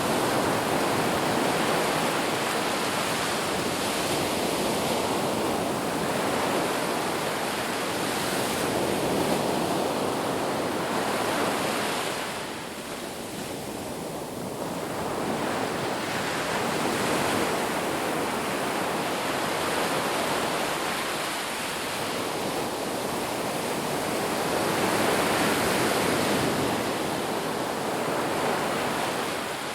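Sea waves breaking and washing ashore: a continuous rush of surf that swells and eases every few seconds, with a short lull about twelve seconds in.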